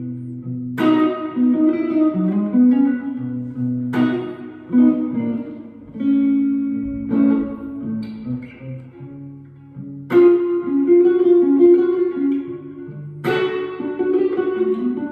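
Fender Stratocaster with Seymour Duncan SSL-1 pickups played through a JHS Morning Glory overdrive pedal into a Fender Vibro Champ Reverb tube amp. It plays a slow blues ballad: full chords struck about a second in, at four seconds, at ten seconds and at thirteen seconds, with softer single-note lines and fills between them.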